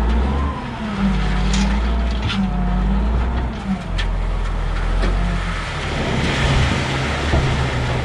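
Diesel engine of a skid steer loader working under load, its pitch rising and falling as it revs, with a few sharp metallic clanks in the first half.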